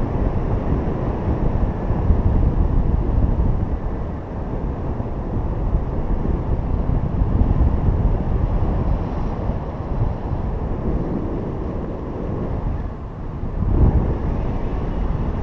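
Steady rush of wind buffeting the microphone of a camera in flight. It dips briefly near the end and then surges back.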